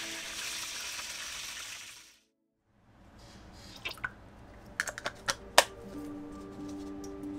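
Chicken nuggets sizzling in hot frying oil with background music, cut off abruptly about two seconds in. After a short gap of silence, a few sharp clicks and taps from the sauce bottle and small bowl as Worcestershire sauce is poured in, over the music.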